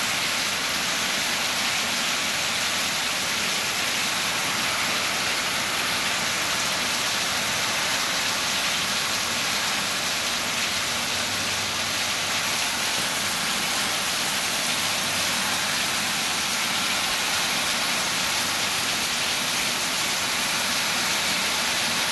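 Heavy rain pouring down, a steady, even hiss with no letup.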